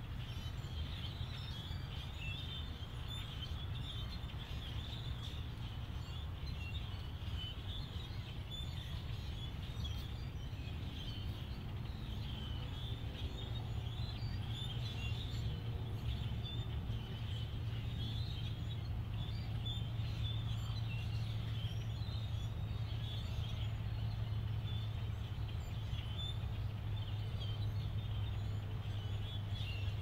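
A large flock of birds calling all at once: a dense, continuous high chatter of many small overlapping calls, over a steady low hum.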